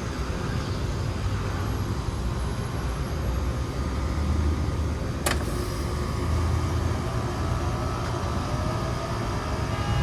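A 5-ton Trane XR14 air conditioner starting up: a steady low hum, one sharp click about five seconds in, then a rising whine over the last couple of seconds as the unit spins up.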